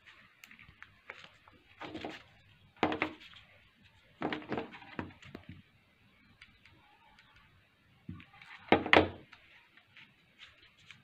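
Clatter and knocks of craft materials being handled on a table: wooden ice-cream sticks and a hot glue gun picked up and put down. The sounds come in four short bursts, the loudest about nine seconds in.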